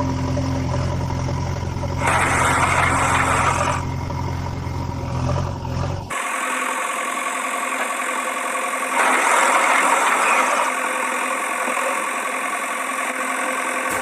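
Engine idling sound effect dubbed over the toy vehicles. A deep low rumble stops abruptly about six seconds in, and the engine noise gets louder twice, at about two to four seconds and again at about nine to ten seconds.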